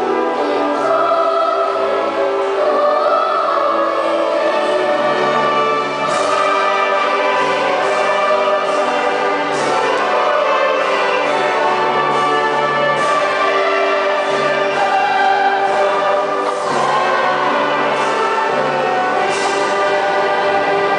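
Children's choir singing a sustained piece, with low held notes underneath that change every second or two.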